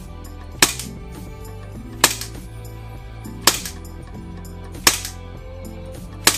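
Secutor Gladius Magna gas blowback airsoft pistol fired single shots through a chronograph: five sharp shots about a second and a half apart. Background music plays underneath.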